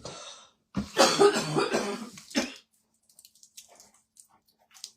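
A person coughing and clearing their throat for about two seconds, starting just under a second in, followed by faint light clicks of handling.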